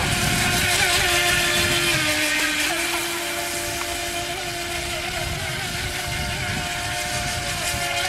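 FT007 electric RC speedboat running flat out on water: a steady high motor whine that dips in pitch about two seconds in and climbs back a moment later, over a constant hiss and wind rumble on the microphone.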